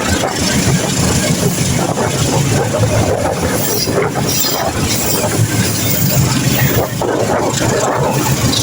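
Passenger train running along the track: a steady loud rumble with wheel and rail noise.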